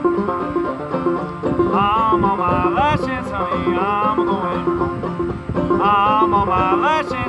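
Banjo being picked in a steady rhythm. A higher, wavering melody line comes in over it in three phrases, sliding upward at the end of each.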